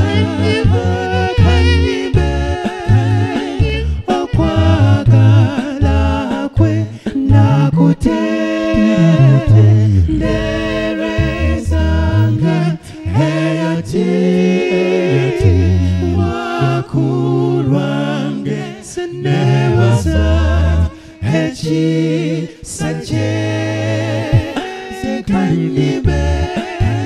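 All-male a cappella group singing a gospel song in close harmony through handheld microphones, with a bass voice holding low notes beneath the upper parts.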